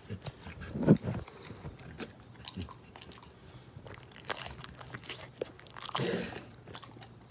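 Golden retriever chewing a crunchy dog treat: a run of irregular crunches and bites, the loudest about a second in.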